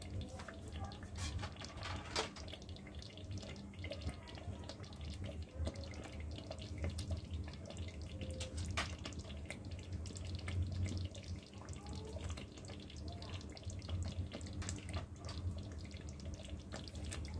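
Thick tomato-cream masala gravy simmering in a steel pot, bubbling with frequent small pops and plops over a low steady hum.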